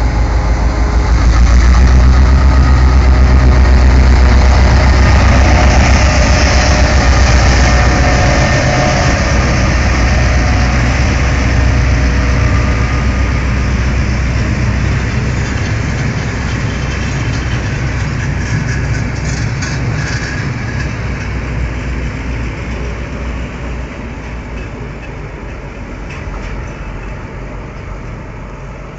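Series 661 (EMD G16) diesel locomotive's two-stroke V16 engine running as it hauls a passenger train past: loud and low at first, then fading steadily as the train pulls away.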